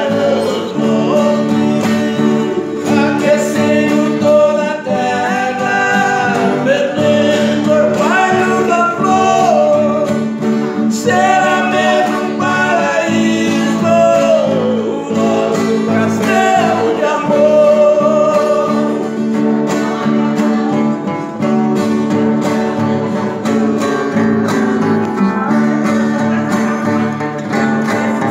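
Acoustic guitars played together, with a man singing a melody over them.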